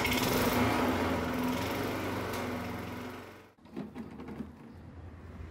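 Honda lawn mower's four-stroke engine running just after being pull-started, loud at first and slowly easing. About three and a half seconds in the sound breaks off sharply, and the engine is then heard running more quietly.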